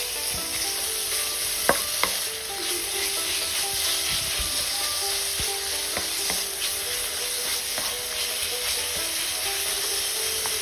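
Ground pork and chopped red onion sizzling in a non-stick frying pan as a wooden spatula stirs and scrapes them around, with two sharp knocks about two seconds in.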